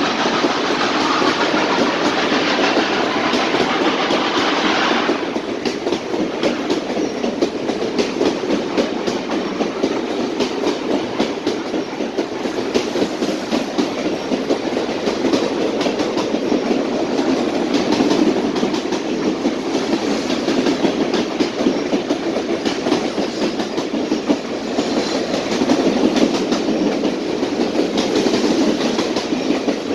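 Passenger coaches of a long train rolling past, their wheels clicking steadily and rapidly over the rail joints with a continuous rumble. A higher hiss cuts off suddenly about five seconds in.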